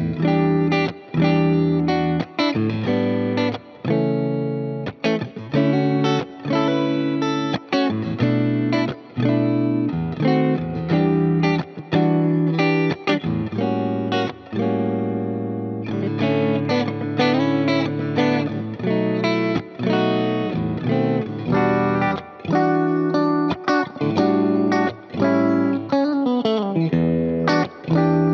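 Fender American Ultra II Stratocaster HSS electric guitar played through an amp simulator with delay and reverb, over a backing track with a bass line. The phrases are choppy, with frequent short, sharp stops between notes.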